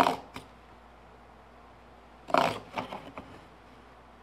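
Marking knife drawn along a steel rule, scoring layout lines across a row of clamped wooden lattice bars. There is a short scrape at the start and another about two seconds in, followed by a few lighter scratches.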